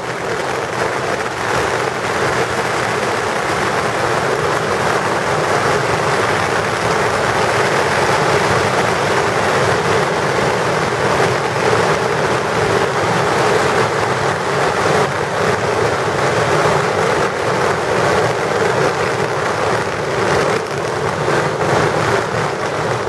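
Long strings of firecrackers going off in one unbroken barrage: a dense, continuous crackle of countless overlapping bangs that keeps up at full strength and stops only at the very end.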